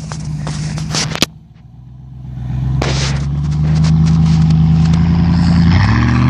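A few sharp crunching steps, then a vehicle engine comes up and runs steadily, growing louder, its pitch stepping up near the end as it revs.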